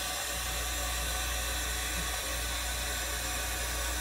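Steady hissing noise with a low hum underneath, unchanging throughout.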